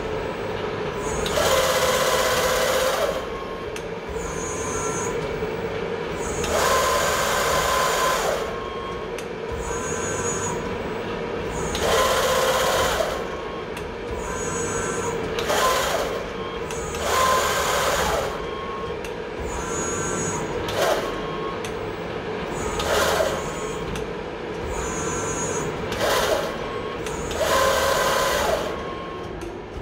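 Safan servo-electric press brake cycling: its servo drives whir in about nine bursts, some around two seconds long and some brief, over a steady machine hum.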